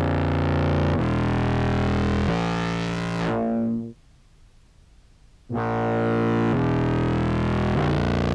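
Contrabass clarinet played through an effects pedal chain with the OBNE Float filter on a slow sine-wave sweep: long, low, buzzy held notes, a phrase of four notes stepping in pitch, a pause of about a second and a half, then another phrase of held notes.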